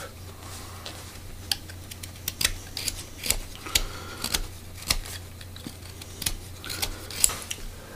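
Utility knife paring an ash spoon blank: a dozen or so short, crisp cuts at irregular spacing, over a low steady hum.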